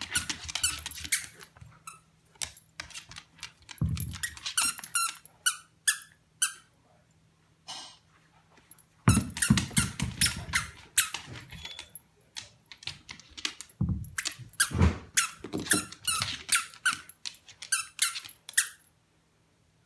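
A squeaky dog toy being chomped by a corgi, squeaking rapidly in clusters of short high squeaks, with a few dull thumps on the hardwood floor.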